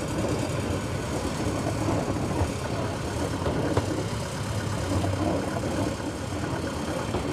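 Deutz OMZ 117 narrow-gauge diesel locomotive running steadily as it hauls skip wagons, with the wagons rolling and rattling along the track.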